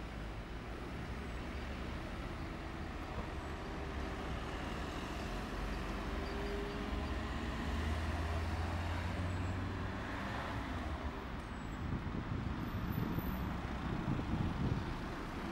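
Street vehicle noise: a steady low engine rumble that swells about eight seconds in, and a car passing close near the end.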